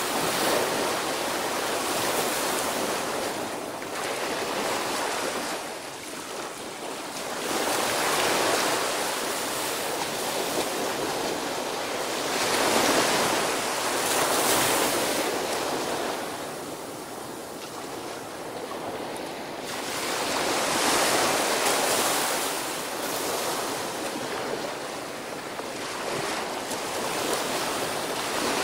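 Small ocean waves breaking on a sandy beach and washing up the shore. The surf swells and fades every several seconds.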